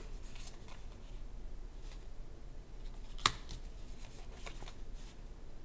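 Uno Flip playing cards being flipped through and laid down one by one on a pile: faint rustles and light clicks, with one sharp card snap about three seconds in.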